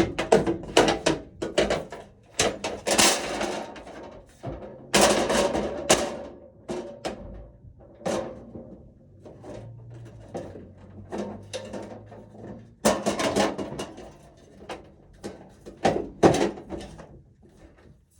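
Irregular metal clicks, clunks and scraping as breakers and the panel's cover are handled and seated in an electrical panel, with a faint low hum partway through.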